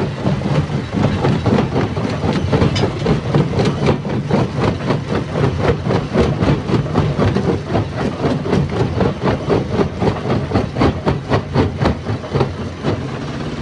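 Stone crusher running, a steady heavy drone under a fast, uneven run of sharp knocks and cracks as rock is broken.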